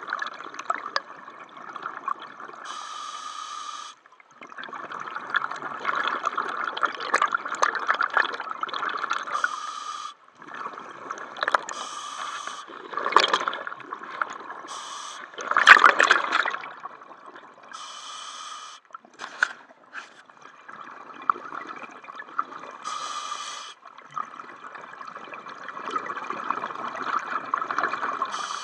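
A scuba diver breathing underwater through a regulator: short hissing inhalations alternate with longer rushes of exhaled bubbles, about every five seconds. The loudest bubble rush comes a little past halfway.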